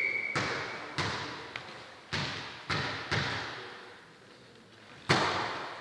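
Volleyball bounced on the sports-hall floor before a serve: four thuds about a second apart with lighter taps between, each ringing out in the hall, then a louder hit about five seconds in. A referee's whistle cuts off at the very start.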